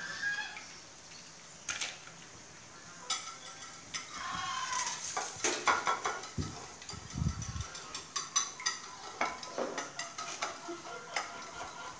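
Metal utensils clinking and tapping against dishes: eggs beaten with a utensil on a ceramic plate, and metal tongs and a ladle knocking against a wok and a steel bowl while skewered quail eggs fry. The clicks come quick and irregular, thickest in the second half, with a few duller knocks in the middle.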